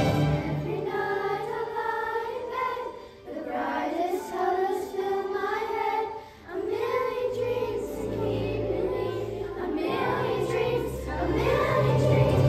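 Primary school children's choir singing together, with a low instrumental accompaniment beneath and short breaks between phrases about three and six seconds in.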